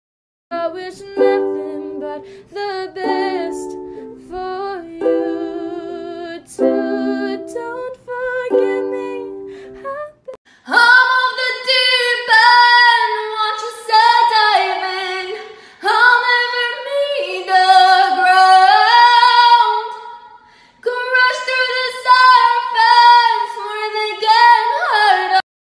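For about the first ten seconds a plucked string instrument plays a run of short notes that die away. Then a woman sings solo with strong vibrato, her notes sliding between pitches, with no accompaniment.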